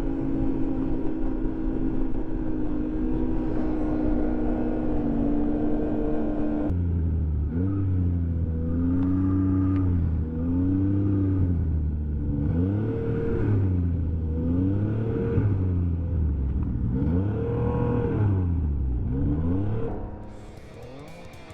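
Arctic Cat LXR snowmobile's Yamaha 1049 cc three-cylinder four-stroke engine running at a steady speed, then from about seven seconds in rising and falling in pitch over and over as the throttle is opened and eased. The engine sound drops away about a second before the end.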